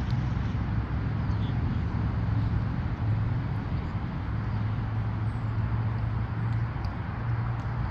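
Steady low outdoor background rumble, with no clear event standing out.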